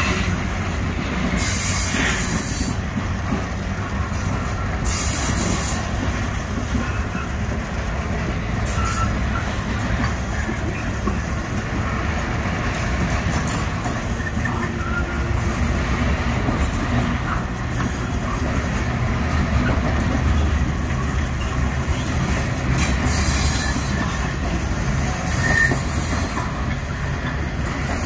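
SSR grain train's hopper wagons rolling past on a curve: a steady rumble of steel wheels on the rails, with brief high-pitched wheel squeals now and then.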